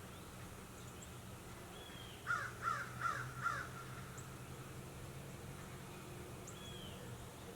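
A crow cawing four times in quick succession about two seconds in, over a steady low hum. A faint short falling whistle from another bird comes just before the caws and again near the end.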